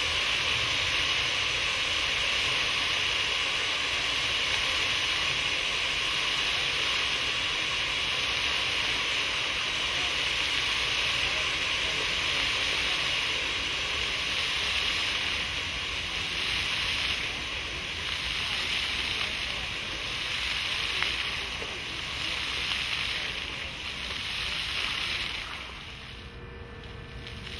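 Water jets of a pavement fountain spraying up and splashing back onto the wet paving, a steady hiss. About halfway through it starts to swell and fade in waves, and it drops away near the end.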